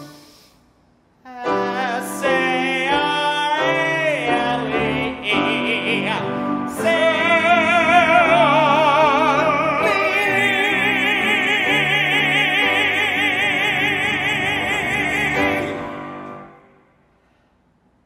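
A male singer in an operatic style, with piano accompaniment, sings the closing phrase of a comic song after a second's pause. He ends on one long note with wide vibrato, which cuts off about sixteen seconds in.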